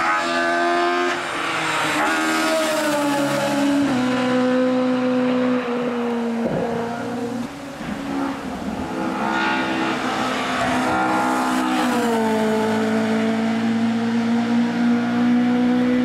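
Naturally aspirated engine of an Opel Kadett CQP hillclimb race car running hard at high revs, its pitch stepping down at several gear changes in the first few seconds, briefly dipping about halfway through, then pulling steadily and slowly rising in pitch after another drop near the end.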